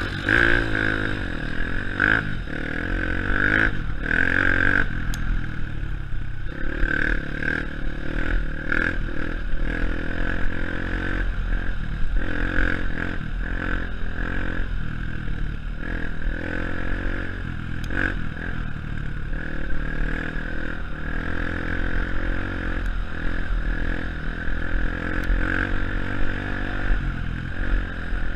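Honda CRF150F's single-cylinder four-stroke engine being ridden on a dirt trail, revving up and easing off again and again as the rider works the throttle and gears. The bike's chassis rattles over the bumpy ground.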